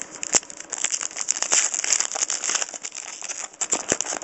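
Trading-card pack wrapper and cards being handled close up: a continuous crinkling with many sharp little clicks and snaps.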